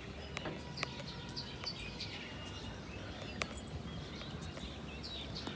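Small birds chirping and twittering in the early morning, many short overlapping calls, over a faint steady background noise.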